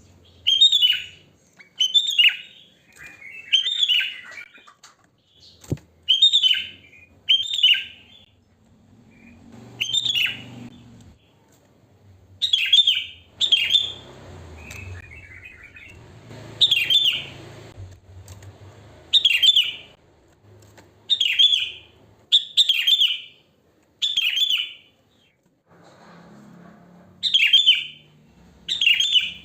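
Sooty-headed bulbul (kutilang) calling: short, bright chirping phrases repeated about once a second, with brief gaps.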